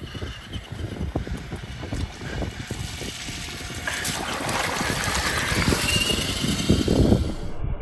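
FTX Outback Fury 1/10 RC crawler's electric motor and drivetrain running as it climbs a muddy slope, mixed with wind buffeting the microphone, which grows louder over the second half.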